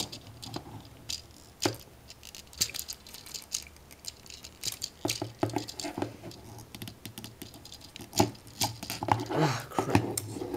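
Hard plastic parts of a toy action figure clicking and tapping as they are handled and fitted together: scattered clicks, coming in small clusters, busiest near the end.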